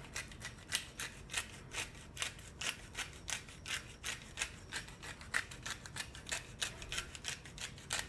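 Twist-top pepper grinder being turned by hand, grinding black peppercorns: a quick, uneven run of small plastic clicks, a few each second.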